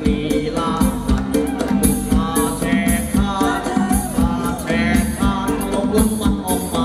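Live band playing upbeat Thai ramwong dance music: a singer over drums and bass with a steady beat.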